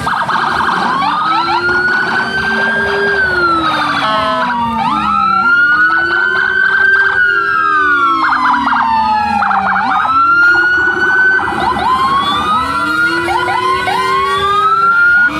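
Several police escort sirens sounding at once, their wails rising and falling out of step with one another. Bursts of rapid yelping cut in now and then.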